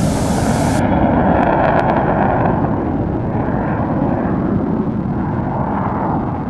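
Jet noise from the X-59's single GE F414 turbofan as the aircraft rolls out on the runway after touchdown: a loud, steady rush that eases slowly. A high hiss cuts off sharply under a second in.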